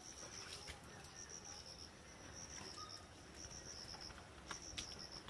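Crickets chirping faintly in a high, pulsing trill that comes in short bursts, with a couple of soft clicks near the end.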